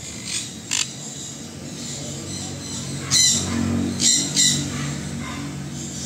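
Sun conures calling in short, sharp bursts: two calls near the start, then three louder ones about halfway through.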